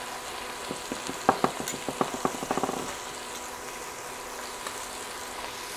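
Steady sizzle of flank steak searing in a hot pan. From about a second in to about three seconds in, a quickening run of short clicks and taps from the knife and fork cutting the seared steak on the cutting board.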